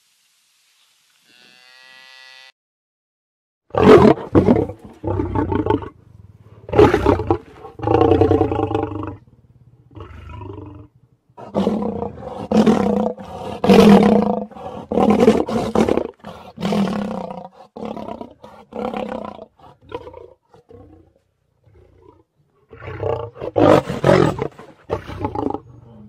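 Lion roaring and growling: a long series of loud, rough calls, each about a second long, beginning a few seconds in, with a short break near the end before more calls.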